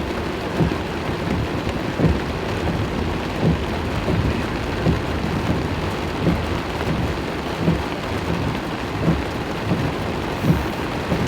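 Heavy rain drumming on a car, with a steady low rumble beneath it. A soft thump comes at an even pace, about once every second and a half, like windshield wiper strokes.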